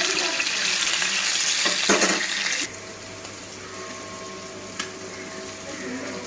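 Food sizzling loudly in hot oil in a pan. The sizzle cuts off abruptly a little under three seconds in, leaving a quieter steady hum.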